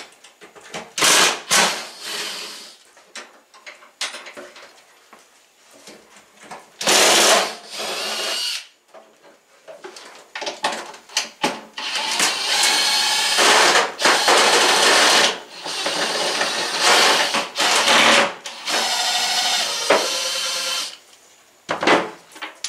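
Cordless drill/driver running in several bursts, a couple of seconds each and longer in the second half, backing out the screws that hold an over-the-range microwave up from the cabinet above.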